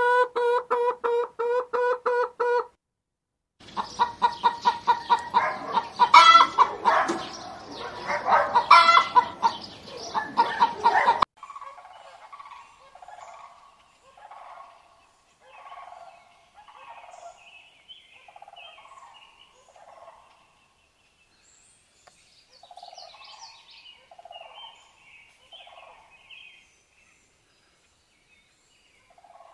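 Domestic fowl calling. First a rapid rattling call held on one pitch, then a loud, dense burst of squawks and clucks, then softer short calls repeated about once a second.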